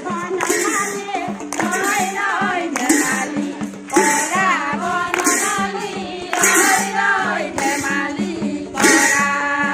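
A group of women singing Assamese devotional naam together, led by one voice, with rhythmic hand clapping keeping the beat.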